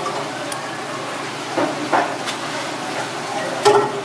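Sea squirts being cut and peeled by hand on a plastic cutting board: a few short knocks and scrapes, about two seconds in and again near the end, over a steady hiss of background noise.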